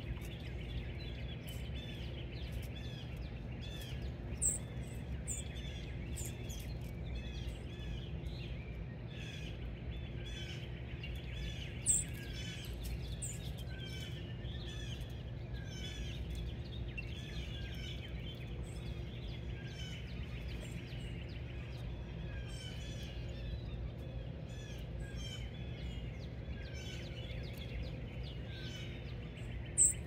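Small songbirds chirping busily, many short calls overlapping, over a steady low hum. A few short, sharp high chirps stand out, the loudest about 12 seconds in.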